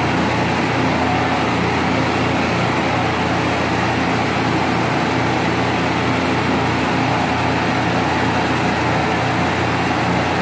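Steady roar of a hand-held gas torch heating a bronze sculpture for a hot patina, mixed with the hiss of an air spray gun misting patina solution onto the metal.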